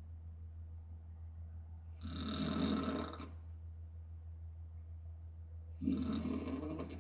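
A woman snoring in her sleep: two snores about four seconds apart, the first about two seconds in and the second near the end, each lasting just over a second. A steady low hum runs underneath.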